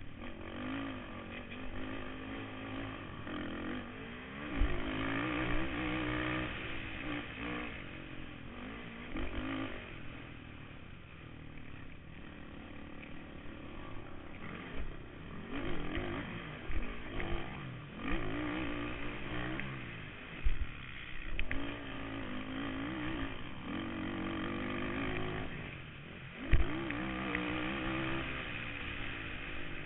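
Kawasaki KFX 450R quad's single-cylinder four-stroke engine, heard from a camera on the machine, revving up and falling off again and again as it is ridden hard over a dirt motocross track. Several sharp thumps come through as it hits bumps.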